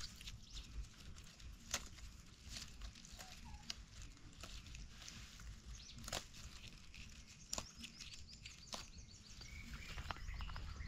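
Hands picking the young shoots of a wild phak wan (Melientha suavis) bush amid dry leaf litter: a scatter of faint sharp snaps and crackles over a low rumble. Near the end it grows louder with footsteps in dry leaves.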